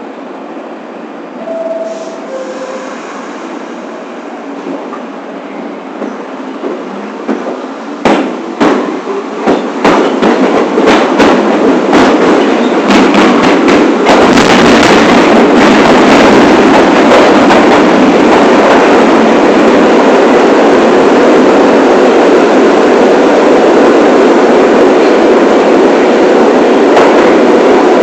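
New York City subway train (the 1 line) pulling away: a brief two-note falling chime near the start, then wheels clacking over rail joints faster and faster from about eight seconds in as it picks up speed. It builds to a steady, loud running noise.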